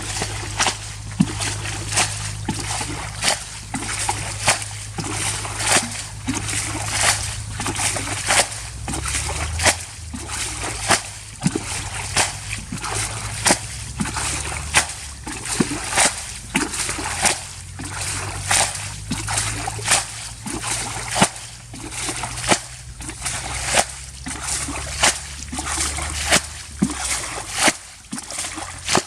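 Water splashing and sloshing in short sharp splashes, about two a second, over a low steady rumble.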